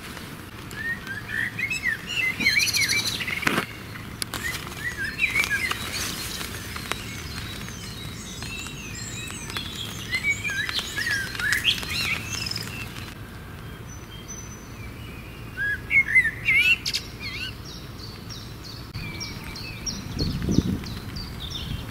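Songbirds singing in repeated short phrases of quick chirps and whistles, a new phrase every few seconds, over a steady low background noise, with an occasional sharp click.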